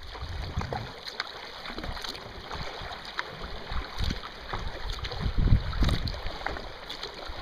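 A kayak on the sea: small paddle splashes and water lapping at the hull, with wind buffeting the microphone in gusts that are strongest about five to six seconds in.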